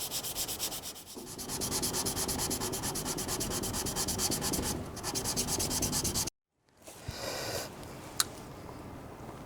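Kitchen knife being polished on a 400-grit Naniwa Professional whetstone in quick, short strokes: a rhythmic rasp of steel on stone, about four strokes a second. It cuts off abruptly about six seconds in, and a brief scrape and a single sharp click follow.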